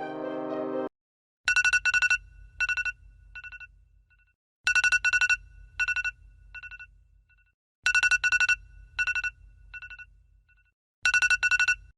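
Telephone ringing: a rapid trilling double ring repeated four times, about three seconds apart, each ring trailing off in fainter echoes over a low hum.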